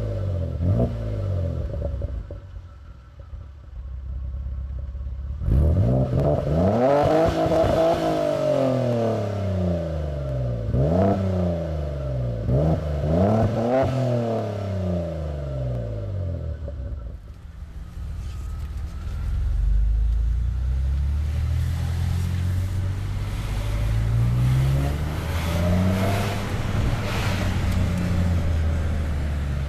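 Opel Vectra OPC's turbocharged V6 running through a full straight-through 76 mm exhaust. Its revs rise and fall in several sweeps in the middle, then it settles to a steady low idle with a few small blips near the end.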